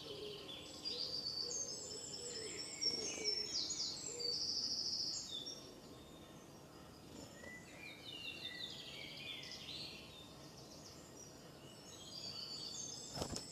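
Several songbirds singing and calling in woodland, with quick repeated chirps and trills that are busiest in the first half, over a faint steady outdoor hiss; a single knock sounds near the end.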